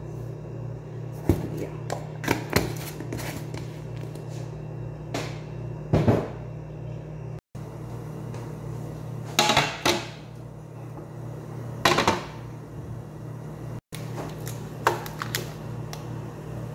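Scattered clinks and knocks of kitchenware being handled (a tea jar, ceramic mugs, a tray), a few seconds apart, over a steady low hum.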